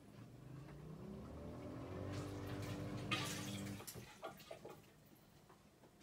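Bosch dishwasher pump motor humming up in pitch as it speeds up, then running steadily with water rushing and gurgling through it. It cuts off abruptly a little before four seconds in, followed by a few faint drips and clicks.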